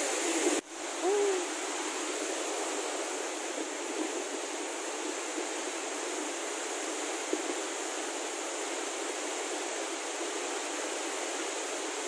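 Henrhyd Falls waterfall plunging into its pool: a steady rushing hiss of falling water and spray. About a second in, a short tone rises and falls over it.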